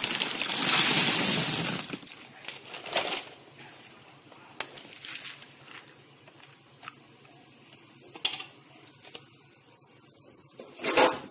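Dry wheat pasta poured from a plastic packet, rattling into a pot of hot water for about two seconds. Then a few scattered knocks as a spoon stirs the pasta in the pot.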